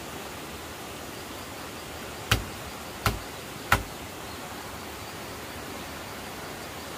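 Three sharp knocks, a little over two seconds in and under a second apart, over a steady background hiss.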